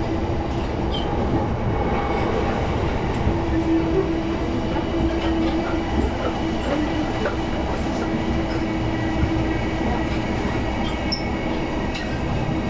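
Running noise inside a JR East E233-0 series electric train carriage: a continuous rumble of wheels on rail with a steady hum.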